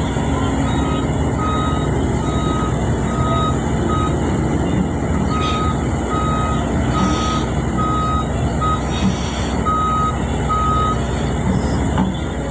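Backhoe's reversing alarm beeping about twice a second over its steadily running engine, with two short pauses and stopping about a second before the end: the machine is backing up.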